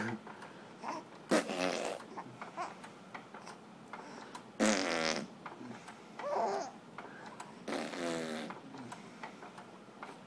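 Infant babbling and cooing: several short vocal sounds a second or more apart, with quiet in between.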